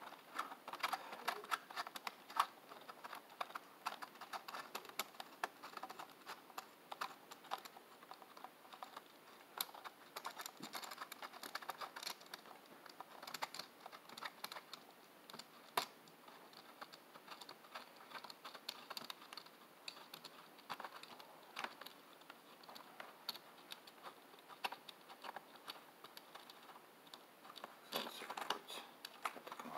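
Irregular light clicks and taps of small screws, nuts and a clear plastic plate being handled and fitted by hand on a desktop CNC frame.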